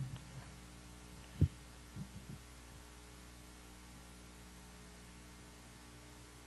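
Steady electrical mains hum from the hall's sound system, with one low thump about a second and a half in and two fainter knocks shortly after.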